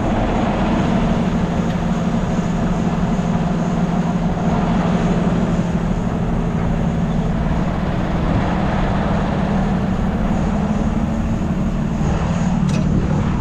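A semi truck's diesel engine running steadily while parked in neutral, an even, loud drone.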